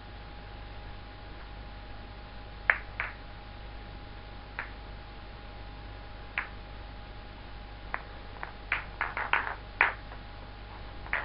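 Hard acrylic contact balls clicking against each other as they are turned in the hands: scattered single clicks, then a quick run of clicks about nine seconds in.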